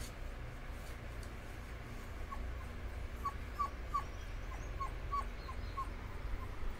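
Dobermann puppy whimpering: a string of about a dozen short, high squeaks, roughly three a second, starting a little over two seconds in, over a steady low rumble.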